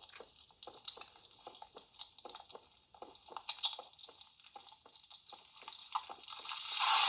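Faint, irregular clicks from handling the CSM Amazons Driver toy belt and its grip, over a faint steady electronic hiss. Near the end a loud, noisy sound effect from the belt's speaker swells up and keeps going.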